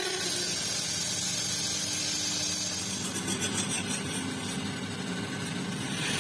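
Wood lathe running while a turning chisel cuts into the spinning wooden handle, a steady machine noise.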